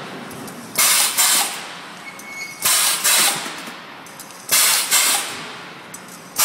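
Pneumatic cylinder on a wire ring-forming machine cycling and venting air: pairs of sharp hisses about half a second apart, three pairs, one about every two seconds, over steady machine noise.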